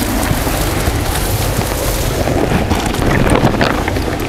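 Wind blowing across the microphone: a steady, loud noise with no clear pattern.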